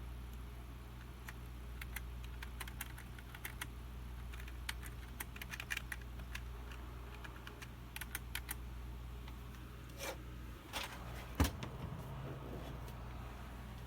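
Computer keyboard keys pressed in scattered, irregular clicks, with a few louder knocks near the end, over a steady low hum.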